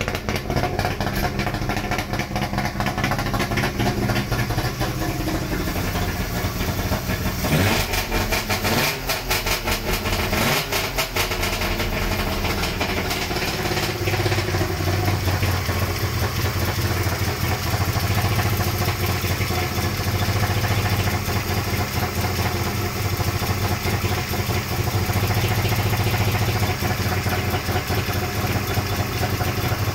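Newly built, tuned two-stroke three-cylinder engine of a 1961 Saab 96 running. The pitch rises and falls briefly from about eight to eleven seconds in as it is revved, then it idles steadily.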